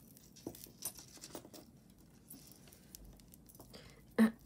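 Faint clicks and rustles of costume jewelry being handled, a few light taps of beads and chain. Near the end a woman starts to clear her throat.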